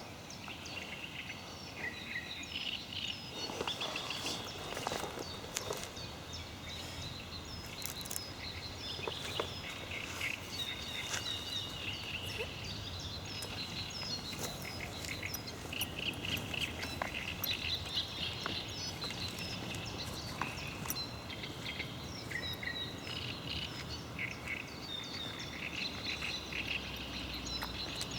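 Several birds singing and calling together, a dense run of chirps and short whistles, over a steady background hiss, with a few brief clicks.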